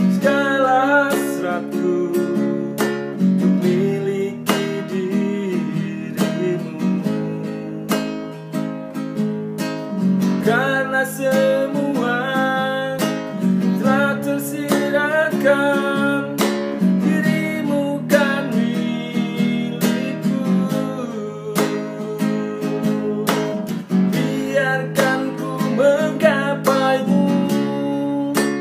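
Nylon-string classical guitar strummed in steady chords, with a man singing along in phrases between the guitar passages.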